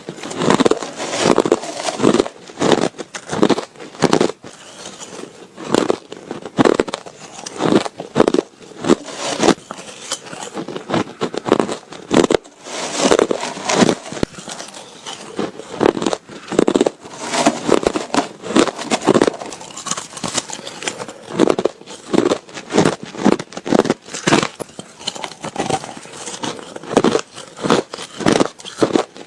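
Ice being bitten and crunched between teeth, one brittle crunch after another in an uneven run of many bites.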